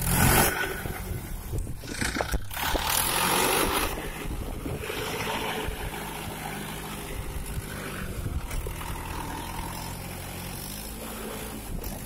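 Mahindra 475 DI tractor's 42 hp diesel engine running steadily, louder and noisier for the first four seconds.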